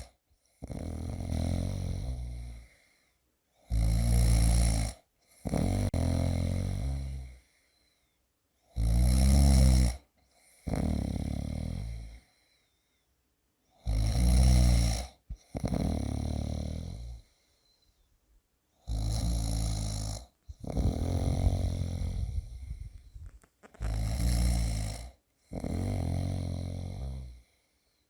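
A person snoring in a steady sleep rhythm, about six breaths: each a short, loud, fluttering snore followed by a longer, softer breath, repeating roughly every five seconds with short pauses between.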